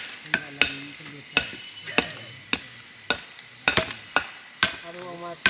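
Wood being chopped with a blade: sharp strikes about two a second, each with a short ring, likely trimming or stripping rattan or wood.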